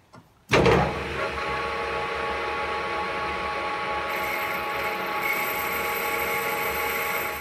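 Large metal lathe starting up suddenly about half a second in, then running steadily with a whine of several constant tones from its drive.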